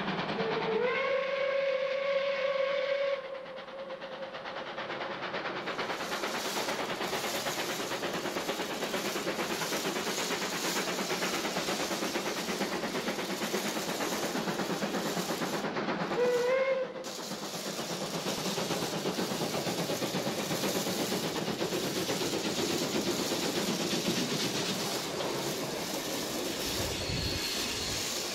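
Steam locomotive whistle blowing for about three seconds, rising slightly in pitch and then holding, over the steady rushing noise of a running steam train. A second, shorter whistle sounds a little past halfway.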